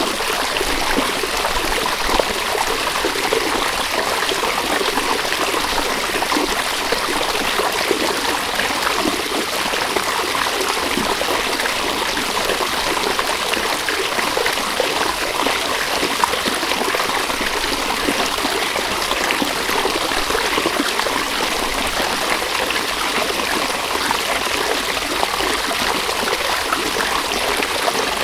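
River water running over stones, a steady rushing and trickling babble.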